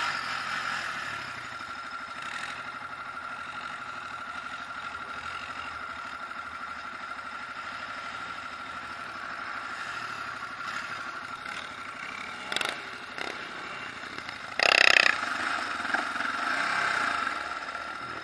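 ATV engine running steadily at low revs, a constant engine hum. About fifteen seconds in there is a brief loud burst, with smaller rises just before and after it.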